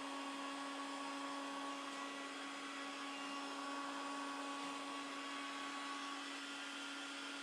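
Electric heat gun blowing steadily with a constant motor hum, shrinking heat-shrink tubing onto a wiring harness.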